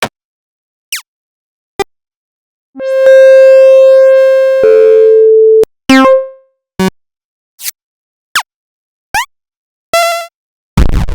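A string of generated 8-bit chiptune sound effects played one after another with short silences between: quick blips and zaps sweeping up or down in pitch, a long steady beep held about two seconds before dropping to a lower tone, and a short noisy burst near the end.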